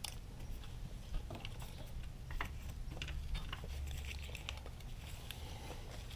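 Scattered light clicks and taps of hand tools and motorcycle parts being handled, irregular rather than a steady ratchet rhythm, over a low steady rumble.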